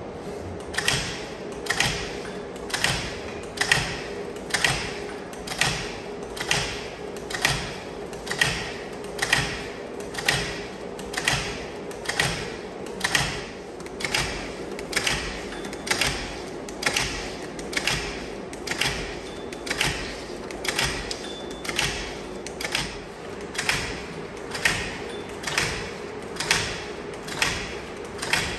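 FUZE semi-automatic double-sided tape applicator running with a steady hum, with a sharp mechanical clack about once a second as each wobbler is fed through and taped.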